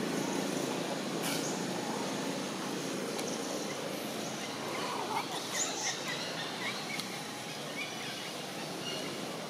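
Steady outdoor background noise with a few short, high chirps clustered about halfway through.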